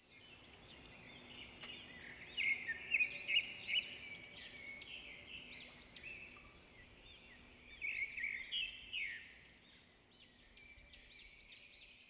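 Songbirds chirping and singing, a run of quick, high, repeated notes over faint outdoor background noise, loudest about two to three seconds in and again around eight seconds in.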